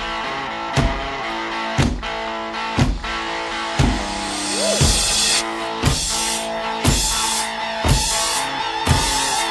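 Rock music: guitar over drums, with a heavy beat about once a second and cymbals coming in about halfway through.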